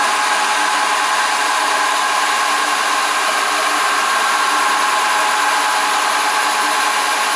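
Milling machine running with no load, its spindle turned through belts and pulleys by a four-pole three-phase motor on a variable frequency inverter set to 65 Hz, the motor at about 1950 rpm. A steady mechanical hum with several high, steady whining tones.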